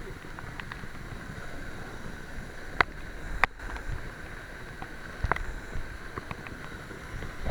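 Steady rush of waterfall water, with three sharp clicks or knocks, the loudest about three seconds in.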